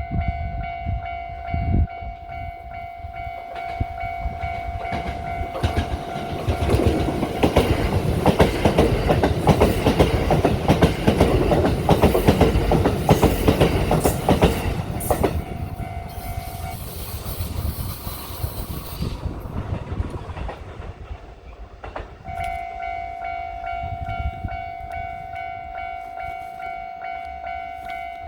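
Kintetsu electric train passing over a level crossing, its wheels clattering over the rail joints, louder through the middle and dying away after about twenty seconds. The crossing's warning bell rings throughout the approach, stops soon after the train clears, and starts ringing again near the end, the signal that another train is coming.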